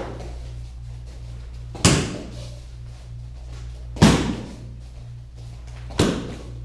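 Taekwondo kicks striking a kick pad: three sharp smacks about two seconds apart, each ringing briefly in the room, over a steady low hum.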